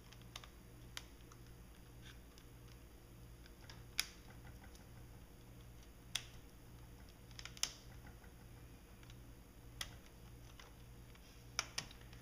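Light, scattered clicks and taps of fischertechnik plastic building parts and thin metal strips being handled and snapped into place, about eight sharp clicks spread irregularly over the stretch.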